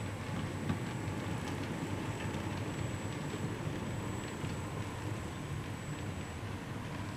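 A model freight train's cars rolling along the track: a steady low rolling rumble with light, irregular clicks.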